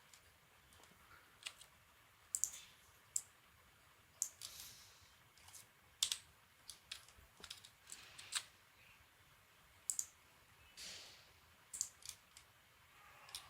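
Scattered, irregular clicks of a computer mouse and keyboard, with a few short scraping smears between them.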